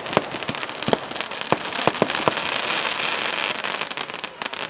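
Fireworks going off: a quick run of sharp bangs and pops, with a dense crackling stretch through the middle that thins out near the end.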